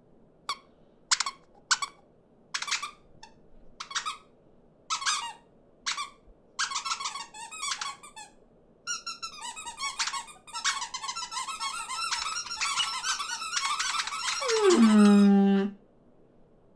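Cartoon birds' squeaky chirps: single calls at first, then many of them chattering over one another. Near the end comes one longer cry that slides down in pitch and holds low before it cuts off.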